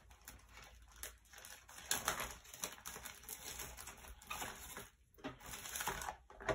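Faint rustling and handling of paper and art supplies on a worktable, in scattered short bursts.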